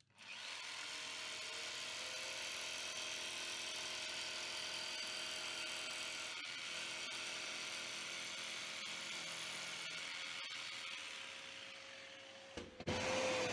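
Electric jigsaw with a fine-tooth acrylic/metal cutting blade running steadily as it cuts through a painted acrylic sheet, joining drilled holes. It stops shortly before the end.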